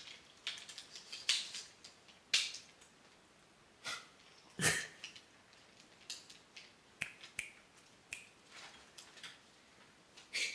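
A dark chocolate sea salt bar being snapped and bitten: a few faint, sharp snaps and clicks, the loudest about two and a half and about four and a half seconds in.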